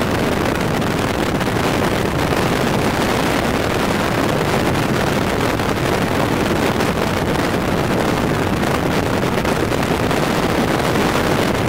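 Steady rush of wind over the microphone, with tyre and road noise from a car driving at speed, heard at an open side window.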